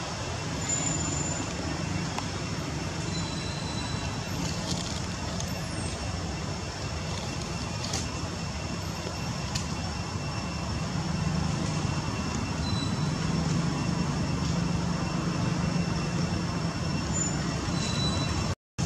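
Steady outdoor background noise: a low rumble under a constant hiss, with a few faint clicks. It cuts out for a split second near the end.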